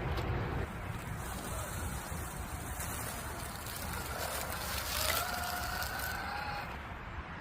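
Boom Racing BRX01 RC crawler driving outdoors: rough rumbling noise with wind on the microphone, and a faint steady whine from about four to six and a half seconds in.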